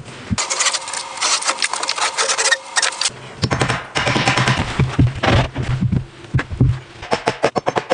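Woodworking and building sounds: fast rattling clicks and scraping on wood, then from about three and a half seconds a low steady hum with more clicks, and a quick run of regular clicks near the end.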